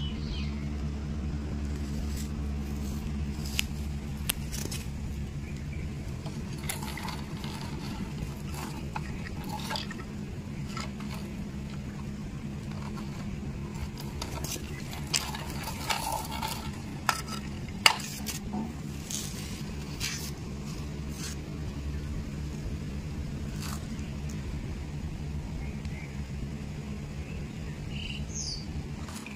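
A steady low hum with scattered light clicks and taps of plastic toys being handled.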